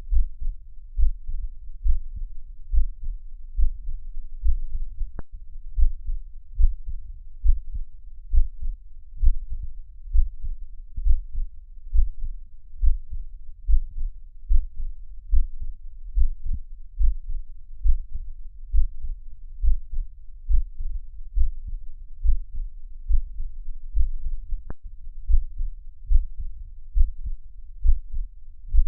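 Heartbeat recording: steady, evenly spaced low thumps of a beating heart.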